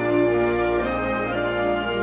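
Background music with long held chords, likely orchestral.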